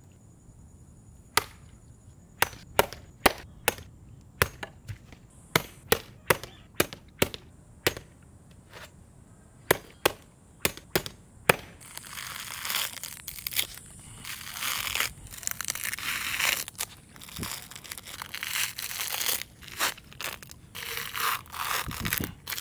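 Machete chopping at a coconut's fibrous husk on a wooden stump, about twenty sharp strikes over the first eleven seconds or so. Then the husk is torn and peeled off by hand: dense, continuous crackling and tearing of coconut fibres.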